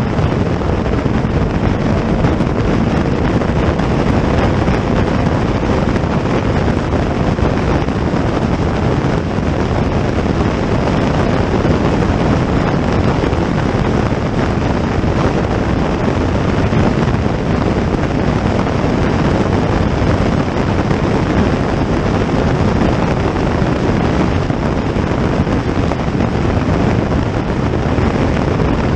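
Steady, loud wind noise buffeting the microphone, with a vehicle running underneath it.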